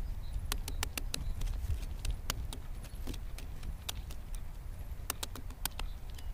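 Irregular sharp taps and clicks, a few a second, over a steady low rumble.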